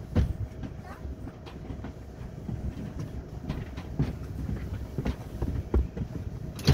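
KTX high-speed train running, heard from inside the carriage: a steady low rumble with irregular knocks and thumps, the loudest near the end.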